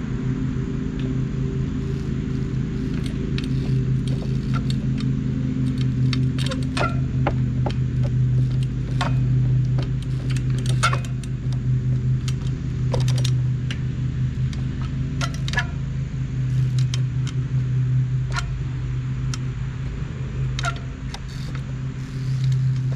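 Echo 24-inch trials bike hopping along wooden pallets: scattered sharp knocks and clicks as the wheels land and the chain and drivetrain rattle, over a steady low droning hum.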